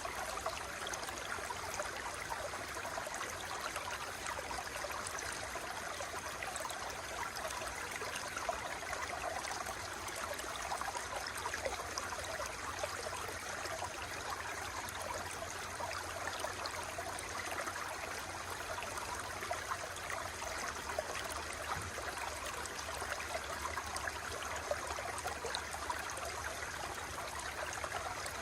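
Flowing water in a stream, a steady babbling and trickling rush with small splashes throughout.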